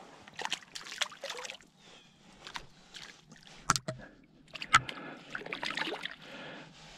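Water sloshing and splashing with scattered sharp clicks and knocks, the loudest about four and five seconds in, as a freshly landed bass is handled at the water's edge.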